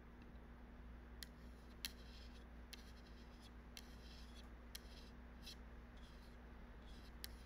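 Faint computer mouse clicks, about seven of them at irregular intervals, over a low steady electrical hum.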